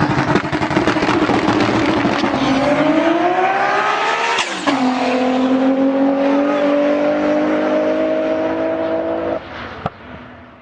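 Turbocharged BMW E46 M3 inline-six accelerating hard, its pitch rising for about four seconds. About four and a half seconds in it upshifts and the pitch drops, then it climbs slowly again before the throttle is lifted near the end and the sound fades out.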